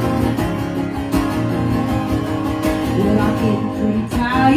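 Acoustic guitar strummed in a steady rhythm, playing the opening of a song live. A woman's singing voice comes in near the end.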